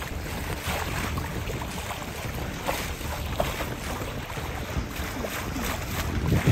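X-Yachts X5⁶ sailing yacht moving under sail: wind buffets the microphone with a steady low rumble, over irregular splashing and hiss of water along the hull.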